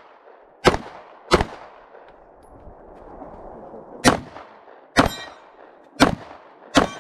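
Six semi-automatic pistol shots fired rapidly in pairs during a practical-shooting stage, with a pause of about three seconds after the first pair. The fourth shot is followed by a brief metallic ring.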